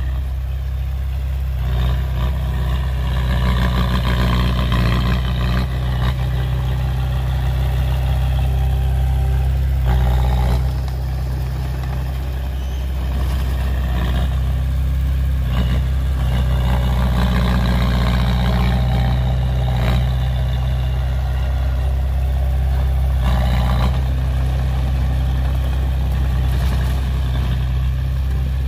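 Heavy construction machinery's diesel engine running steadily at a low pitch, with two stretches of louder, rougher working noise a few seconds in and again past the middle.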